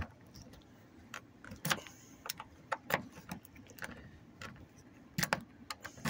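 A freshly cut key being worked into the door lock of a 2014 Honda Accord, making irregular metal clicks and scrapes. The new key does not go in smoothly yet.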